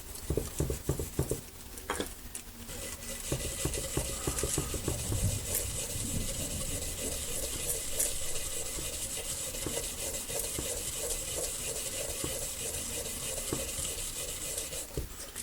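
Transfer foil being rubbed down by hand onto glue on a sewing machine's surface: a steady scratchy rubbing. A few light taps and clicks come in the first two seconds as the foil is handled.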